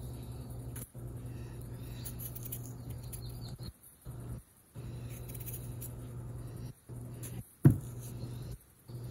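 Kitchen knife paring the skin off a raw potato, with faint scraping, over a steady low hum that cuts in and out. About three-quarters of the way through, a sharp knock as the peeled potato is set down on the plastic cutting board.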